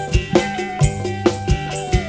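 Music played loud through a PA sound system under test: a steady beat of sharp drum strokes with a held melody line and bass.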